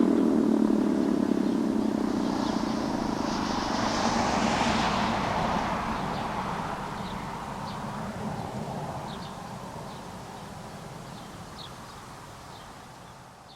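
Sentry 16V-1T-B tornado siren winding down after its Attack signal, its falling tone fading out in the first couple of seconds. A rushing swell follows about four to five seconds in, and the sound then slowly dies away.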